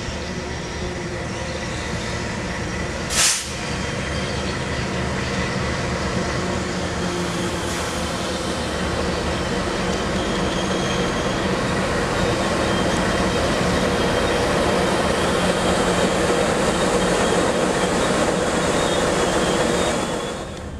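Diesel locomotive running as it draws a passenger train into the station on the next track, its engine growing louder as it comes alongside. A brief sharp burst of noise about three seconds in.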